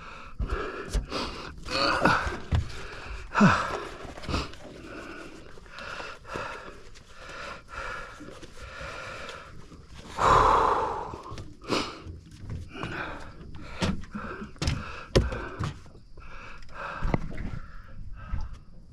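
A man breathing hard and puffing, winded after landing a big fish, with a loud blowing exhale about ten seconds in. Scattered knocks and clicks of gear being handled run through it.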